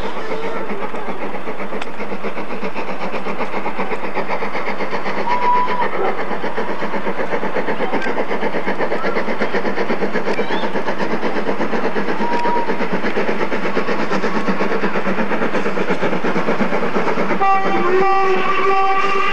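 LMS Jubilee class three-cylinder 4-6-0 steam locomotive "Bahamas" working a train away, its exhaust beating steadily. Near the end its steam whistle starts and is held.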